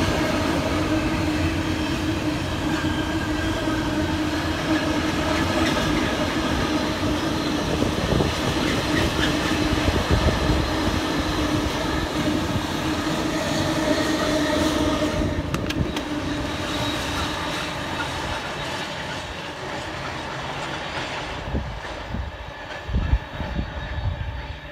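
A train running past on the railway line. Its steady rumble and running tones hold for about fifteen seconds, then fade away as it moves off.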